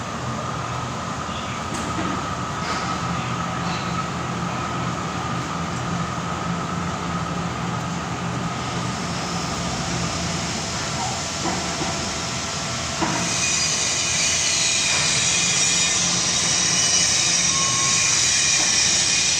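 DMG Mori Ecoturn 450 V3 CNC lathe running, a steady mechanical hum with a high whine. About thirteen seconds in it gets louder and a high hiss joins.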